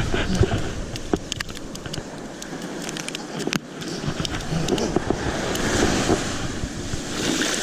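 Wind buffeting the microphone over the wash of ocean surf, gusting up and down, with a few sharp clicks and knocks about one to four seconds in.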